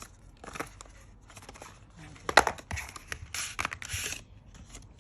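Packaging of a smartphone box being handled while the charging cable is taken out: irregular rustling and crinkling of paper and plastic with small clicks, a louder rustle about halfway through and a longer scraping rustle near the end.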